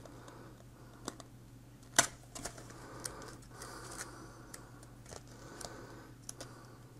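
Paper manual and card handled and leafed through by hand: scattered soft clicks and rustles, with one sharper tick about two seconds in, over a faint steady hum.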